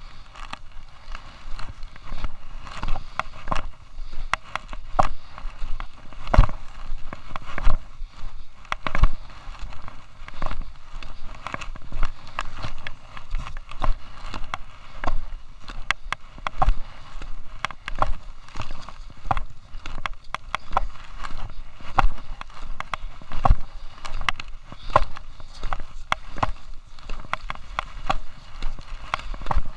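Skis sliding and scraping over packed snow on a downhill run, with sharp knocks and scrapes about every second, mixed with a chest-mounted camera rubbing and knocking against jacket fabric.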